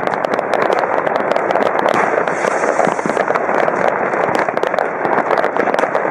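Fireworks and firecrackers going off in a dense, unbroken crackle of sharp bangs, many each second, with a brief hiss a little past the middle.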